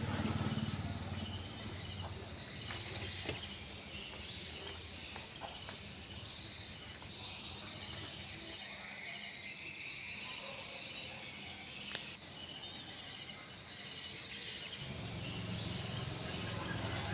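Disc spinning in an opened Sony portable CD player: the spindle motor whirs, strongest at the start and again near the end, with high chirping sounds running through the middle.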